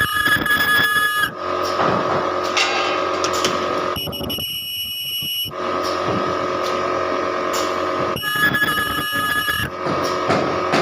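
Ultrasonic plastic welding machine running on a rotary table: a steady mechanical buzzing hum with high whining tones. The tones switch on and off every second or few, louder in the first second and again about eight seconds in, with a quieter stretch around four to five seconds in.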